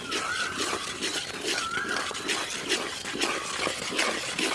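Steel ladle stirring semolina into syrup in a large steel pot, in repeated sloshing, scraping strokes about two to three a second. A wavering high call sounds twice, near the start and about a second and a half in.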